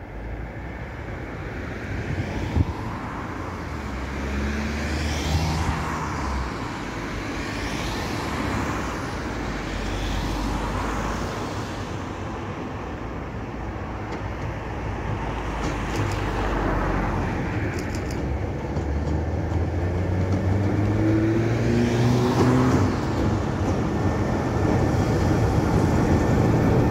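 Diesel locomotive approaching at low speed and passing close beneath, its engine running with a low throb that grows steadily louder, and its pitch rising about twenty seconds in.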